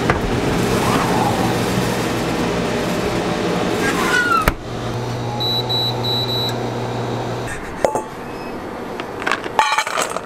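Steady hum of a refrigerated cabinet. It cuts to a few short, high electronic beeps from an induction cooktop, and near the end white chocolate discs clatter into a stainless steel bowl.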